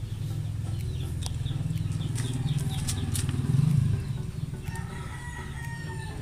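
Chickens clucking, with a rooster crowing once near the end, over a low steady rumble that swells briefly about three and a half seconds in.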